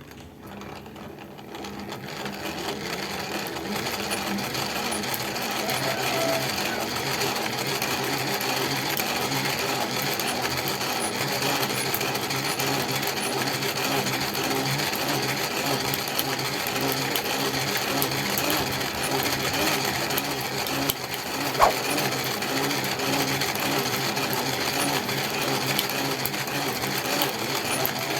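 Small electric coil-winding machine running steadily with a fast rhythmic clatter while it winds enamelled wire for the fan motor's new coil. It builds up over the first few seconds, and there is one sharp click about 22 seconds in.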